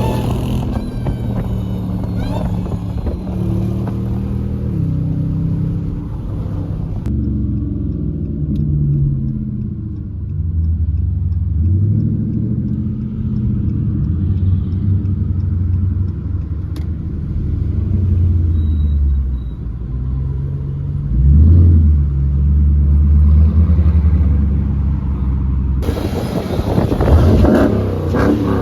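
Car engine running while driving, holding steady for stretches and rising in revs twice as it accelerates.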